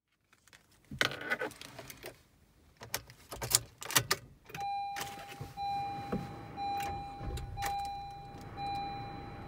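Keys jangling and clicking inside a 2018 Honda Civic's cabin. About halfway in, the car's warning chime starts: a steady tone repeating about once a second.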